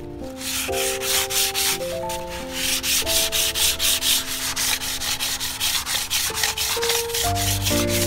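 Sandpaper rubbed by hand over a dried white-cement pond basin in quick back-and-forth strokes, about four or five a second: the final sanding of the cured casting. The strokes start just after the beginning and stop about a second before the end.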